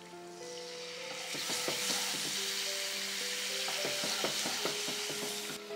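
Yogurt hitting hot oil and chilli masala in a frying pan and sizzling, the hiss building over the first second or two, with a wooden spatula scraping the pan as it is stirred in. The sizzle cuts off suddenly near the end.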